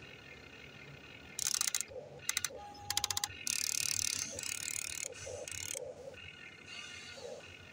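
Huina RC excavator's small electric gear motors running in short bursts as the boom and bucket move: rapid clicking and rattling at first, then a longer stretch of gear noise.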